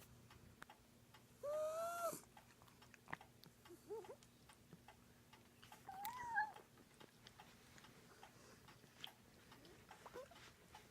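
A cat making short, high-pitched arched cries with each breath: a clear one about two seconds in, a weaker pair near four seconds, another near six seconds and faint ones near the end. The noises come from an airway damaged by the breathing tube used during dental surgery.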